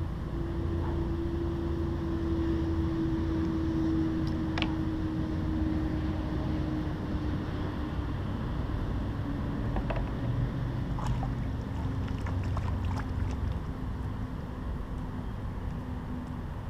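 Low, steady drone of a distant engine, its pitch sinking slowly, over a muffled rumble. A few light clicks and taps come from handling a small bream and its jighead.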